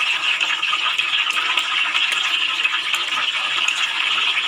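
Hot oil sizzling steadily around a whole chicken deep-frying in a pot, with small crackles throughout.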